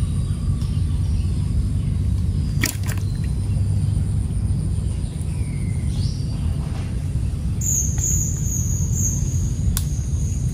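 Steady low outdoor rumble, with a sharp double click about two and a half seconds in and another near the end. A few faint high chirps come through, and a thin high whistling tone starts about three quarters of the way through.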